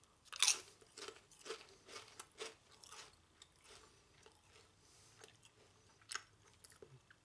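A Lay's potato chip being bitten and chewed: a loud first crunch about half a second in, then crunchy chews about twice a second that fade after about three seconds, with one more crunch near the end.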